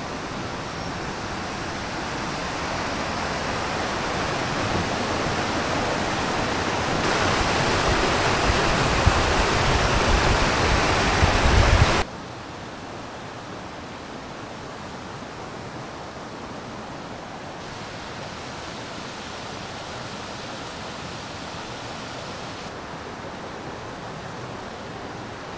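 Steady rush of a mountain stream, growing louder over the first twelve seconds with some low rumble. It then cuts abruptly to a quieter, even rush.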